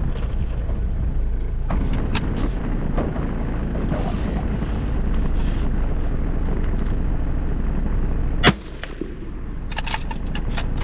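A 4x4's engine runs steadily, then a single loud rifle shot rings out about eight and a half seconds in, followed by a few sharp clicks.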